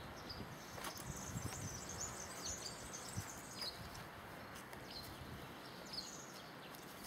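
Small birds chirping, with short high calls scattered through, over a steady outdoor background hiss.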